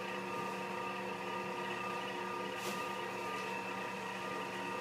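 A steady mechanical hum made of several constant tones over a light hiss, holding even without change.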